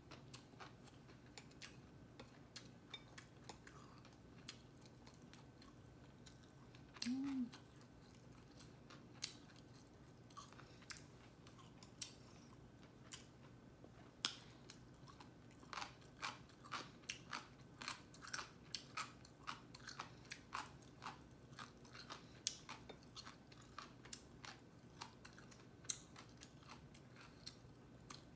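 A person chewing food close to the microphone, with faint wet mouth clicks, steadiest in a run of about two chews a second past the middle, and a short closed-mouth "mm" hum about seven seconds in.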